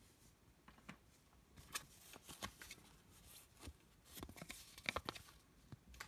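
Faint rustling and light ticks of paper cards being handled by a gloved hand: the printed Leatherman card and instruction leaflet slid and picked up. There are two bouts of handling, the second, near the end, the loudest.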